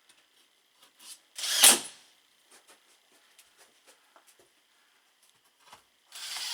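Handling noises of tools and electrical parts being worked: scattered light clicks and taps, with a loud, short scraping rush about a second and a half in and another starting near the end.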